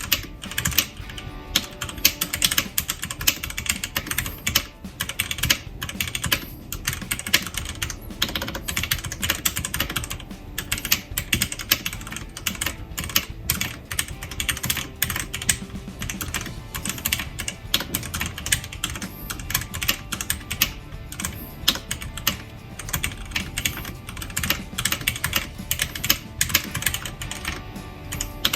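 Continuous typing on a CoolKiller CK-181 mini mechanical keyboard fitted with red linear switches, O-ring dampeners and lubed, Holee-modded stabilizers: a steady, fast stream of keystrokes.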